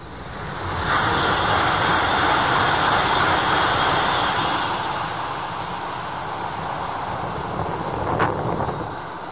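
JR East E5 series Shinkansen passing at high speed into a tunnel: a loud rush of air and running noise swells within the first second, holds for a few seconds, then eases to a lower steady rush as the train disappears into the tunnel.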